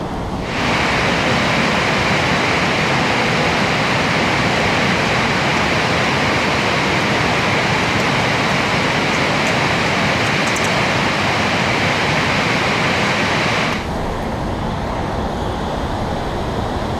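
Shallow river rushing over a riffle: a steady hiss of flowing water that jumps louder about half a second in and drops back near the end.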